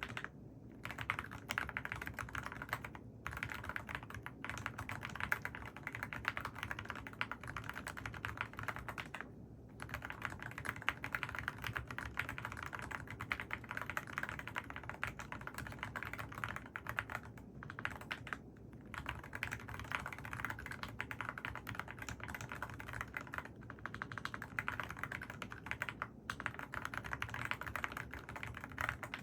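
Mechanical keyboard with AKKO Rosewood switches being typed on quickly and continuously, a dense stream of key clacks broken by a few short pauses.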